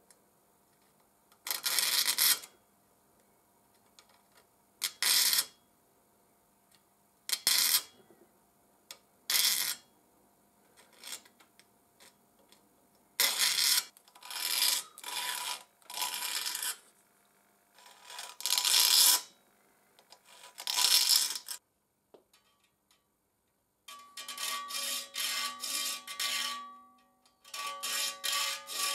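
Saw file rasping across the steel teeth of a tenon saw clamped in a vise, as the saw is sharpened: single strokes a second or two apart, then near the end a quicker run of short strokes in which the saw plate rings.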